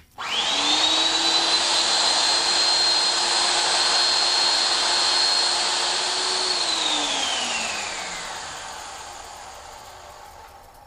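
Magnetic drill motor starting and running steadily with a high whine while its annular cutter bores through steel plate. About six and a half seconds in, the motor is switched off and winds down, its whine falling in pitch and fading.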